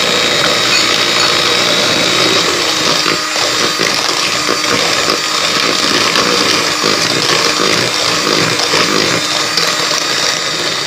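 Electric hand mixer running steadily, its twin beaters whisking thick cake batter of creamed margarine, sugar and egg in a plastic bowl.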